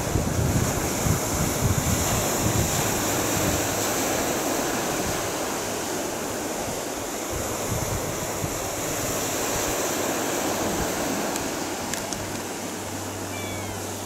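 Sea surf washing against a concrete tetrapod breakwater, with wind buffeting the microphone; the low wind rumble is heaviest in the first few seconds and eases after.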